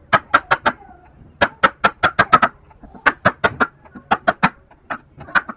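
Mallet striking a chisel to cut a wooden joint by hand: quick, sharp knocks in runs of four to seven, about five a second, with short pauses between runs.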